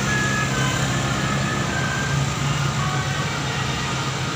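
Tour bus diesel engine running steadily under load as the bus climbs the hill past the roadside.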